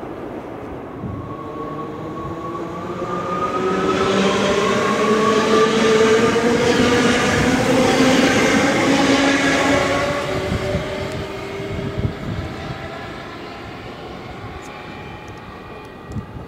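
NS Sprinter Light Train electric multiple unit accelerating past and away, its traction motors whining in several tones that climb slowly in pitch. The whine grows loudest midway and fades as the train pulls away.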